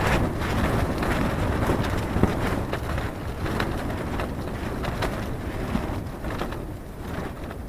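Strong gusty wind buffeting the microphone, a rough rushing noise that eases a little near the end.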